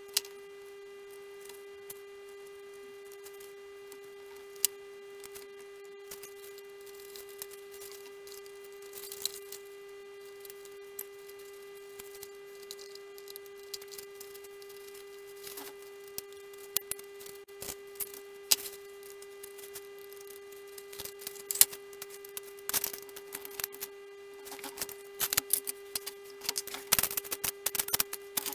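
Small clicks, taps and scrapes of hands handling little parts and tools on a workbench, sparse at first and much busier in the last few seconds, over a steady electrical hum.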